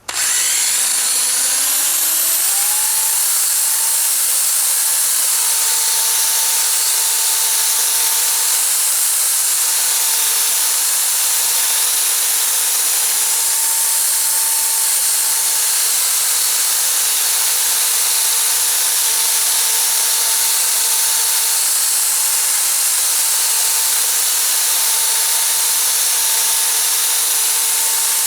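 Electric drill driving a Mothers Power Ball polishing ball. It starts suddenly and its whine rises in pitch over about two seconds, then runs steadily at speed with a loud hiss, as in the polishing step of a headlight restoration.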